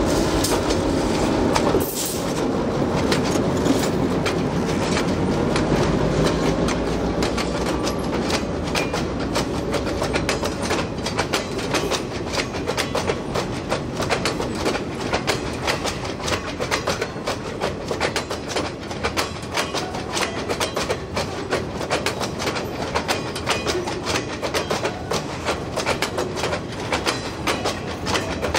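Diesel-hauled freight train rolling by: a heavy locomotive engine rumble in the first few seconds, then the freight cars' wheels clicking over the rail joints in a steady clickety-clack that slowly grows fainter.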